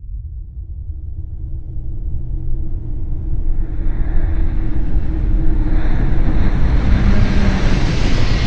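Designed sci-fi ambience: a deep rumble and rushing, wind-like noise swelling steadily louder, with a faint steady hum underneath.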